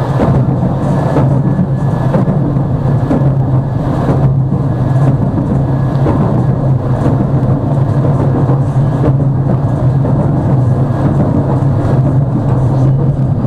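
Tram running along its track, heard from inside the car: a steady low hum over the noise of the wheels on the rails.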